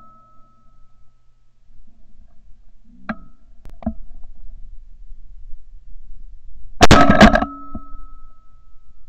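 A shotgun fired once about seven seconds in, a very loud crack heard from a camera mounted on the barrel, followed by a metallic ringing that fades over about a second and a half.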